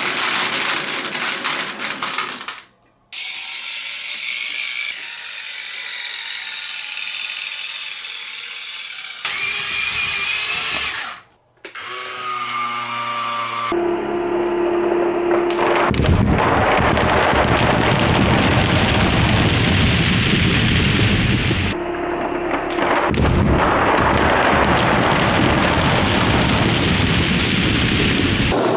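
Marbles rolling and clattering on a wooden marble run in short cuts. This gives way to a battery-powered toy dump truck's small electric motor and gears whirring loudly for most of the second half, with a brief break a little past the middle.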